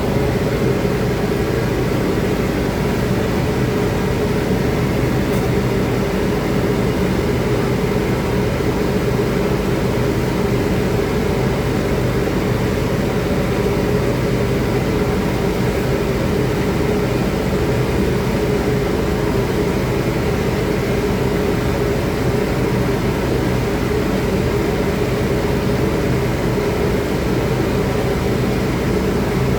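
A steady electric motor running with a rush of air and a constant low hum, the kind made by a fan or blower.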